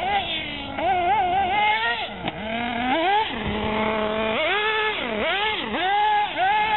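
Radio-controlled racing buggies' small motors revving up and down rapidly and repeatedly as the cars race over a dirt track. The pitch is high, and more than one car is heard at once.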